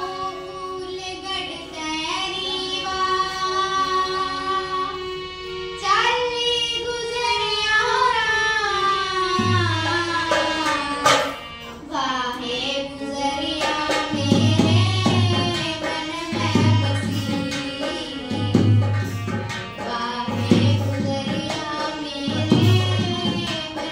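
A girl singing a Haryanvi folk song into a microphone, with long held notes that slide in pitch. Low drum strokes join in partway through and then fall about every two seconds.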